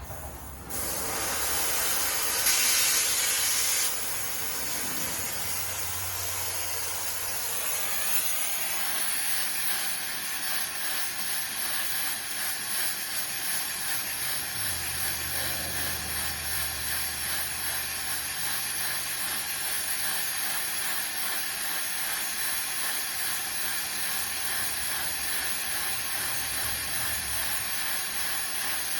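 Gas torch flame hissing steadily as it heats a rusted, seized ball joint nut. The hiss starts about a second in and is louder for a moment before settling to an even level.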